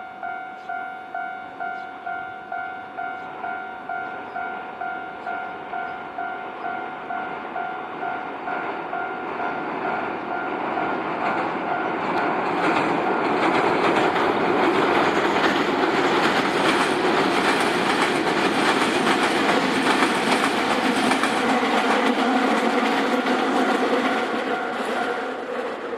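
Railway level crossing alarm ringing in a steady pulse of about two dings a second while a Nankai train approaches and passes over the crossing. The train's wheel and rail noise builds from about ten seconds in and is loudest in the second half, and the crossing bell stops shortly before the end as the train moves away.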